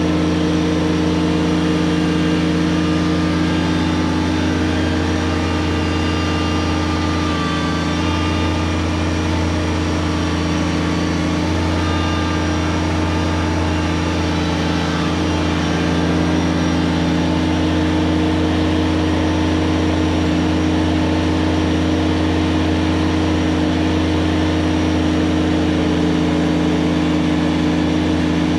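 Kubota BX23S subcompact tractor's three-cylinder diesel engine running steadily while its backhoe boom is worked.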